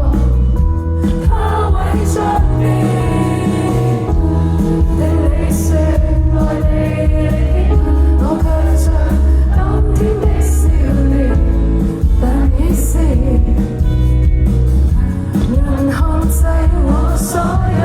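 Live band music with singing over a heavy, steady bass line.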